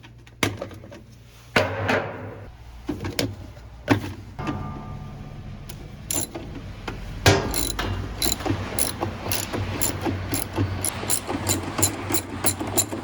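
Hand tools working on a washing machine's metal cabinet: scattered knocks and clatter, then a fast run of ratchet clicking in the second half.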